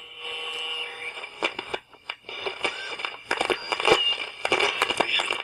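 Radio static: crackles and clicks under several whistling tones that start, stop and shift in pitch, like a shortwave receiver picking up noise and carriers between stations.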